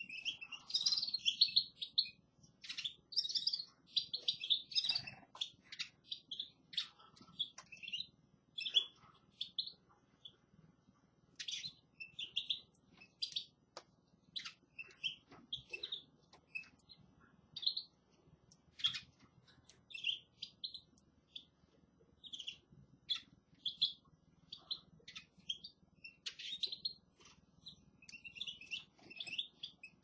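Several caged finches chirping and twittering, short bright calls and brief song phrases overlapping and following one another throughout, over a faint low hum.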